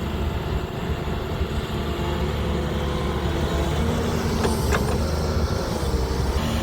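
Diesel engine of a JCB backhoe loader running steadily under work, with a brief high squeak about four and a half seconds in.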